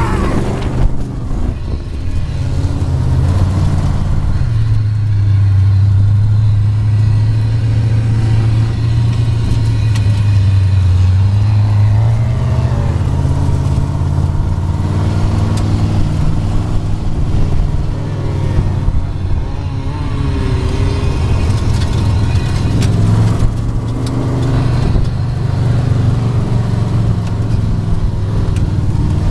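Sand rail engine running under load as the buggy drives over sand dunes: a loud, steady low drone that is strongest for several seconds in the first half, eases off in the middle, then builds again near the end.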